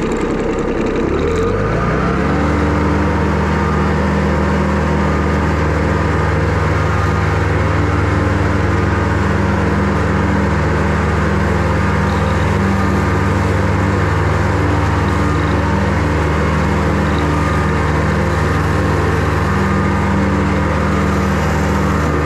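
Riding lawn mower engine revving up about a second or two in, then running steadily at a constant high speed while the mower cuts through tall pasture grass.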